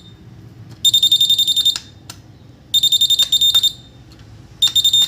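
Wireless nurse call receiver panel's buzzer sounding a patient-call alert: three bursts of rapid, high-pitched beeping, each just under a second long, about two seconds apart. A few faint clicks fall between the bursts.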